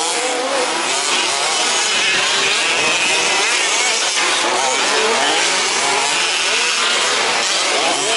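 Several 1/5-scale two-stroke petrol RC truck engines racing together, a high buzzing that keeps rising and falling as each is revved up and backed off.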